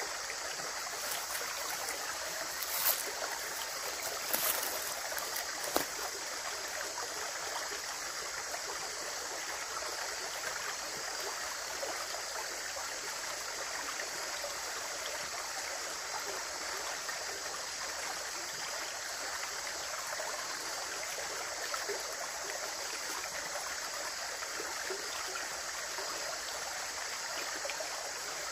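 Running water flowing steadily, an even rush of a stream. There are three brief sharp ticks about three to six seconds in.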